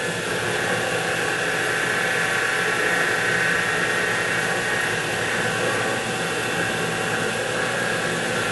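X2 mini mill's spindle running steadily with a drill bit cutting a hole in a metal bracket: a constant machine whine made of several steady tones.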